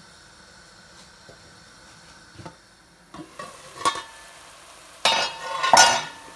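Aluminium cooking pot on a gas stove, its lid and utensils handled: a few light knocks, then about a second of loud metallic scraping and clatter near the end, over a faint steady hiss.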